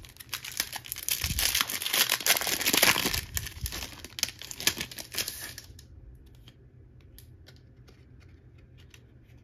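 Crinkly trading-card packaging being handled, rustling and crackling densely for about five seconds, then dying down to a few faint ticks.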